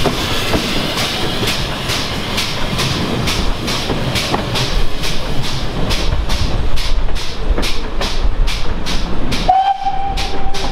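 Steam train running, with a rhythmic beat about three times a second that gradually quickens. A steam whistle starts suddenly about a second before the end and holds one steady note.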